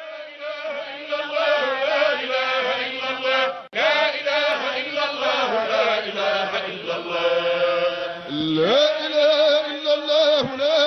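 Religious chanting: voices intoning a slow devotional chant in long, bending, ornamented notes, with a sudden brief break about four seconds in.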